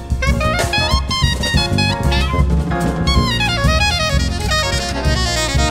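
Soprano saxophone soloing in fast runs of notes, backed by bass and drum kit in a live jazz band.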